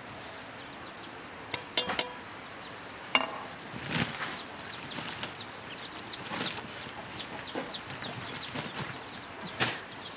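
Chickens clucking, with a few sharp clinks and knocks of metal pots and utensils, the loudest about two seconds in and near the end.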